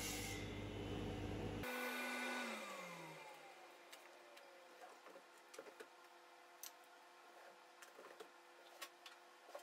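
Table saw running, then switched off about two seconds in, its whine falling as the blade spins down. After that, scattered light clicks and knocks of cut wood pieces being lifted and set down on the plywood sled.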